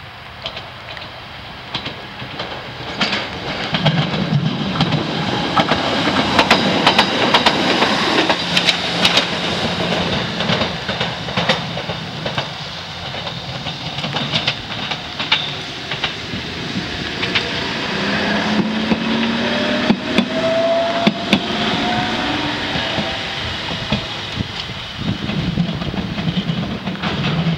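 Fukui Railway 770-series and 880-series articulated trams passing on the line, the wheels clicking sharply over the rail joints. Around twenty seconds in, a motor whine rises in pitch as a train gathers speed.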